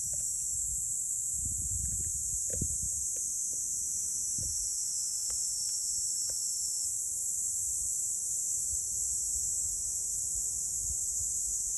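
Steady high-pitched buzzing of an insect chorus, in two high bands that hold without a break, over faint low rustling with a few light ticks.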